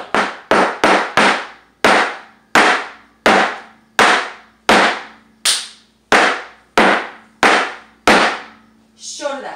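Flamenco shoes stamping on a plywood floor in footwork: four quick strikes, then about ten evenly spaced strikes roughly one every 0.7 seconds, each ringing briefly.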